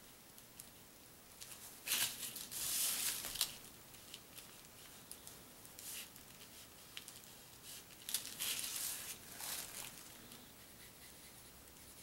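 A DecoColor paint marker scratching on a paper hang tag, with the tag rustling as it is moved by hand. There are two main scratchy bursts of about a second and a half each, roughly six seconds apart, with short light ticks between.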